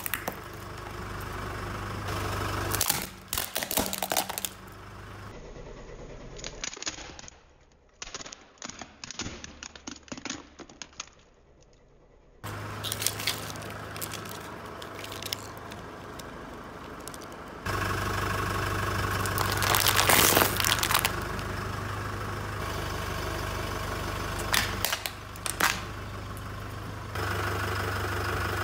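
Car engine idling with a steady low hum while its tyre rolls over and crushes small objects. Glass-like Christmas baubles crack and shatter, and plastic pieces crunch and snap in a series of sharp cracks.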